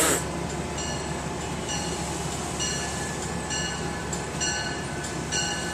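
Locomotive bell on a Metro-North P32 diesel ringing steadily, about one strike a second, as the train stands at the platform. A brief burst of hiss comes right at the start.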